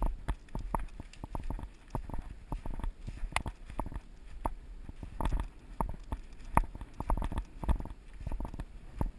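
Hurried footsteps through a thick layer of dry fallen leaves: several steps a second, each a dull thud with a crisp crunching rustle.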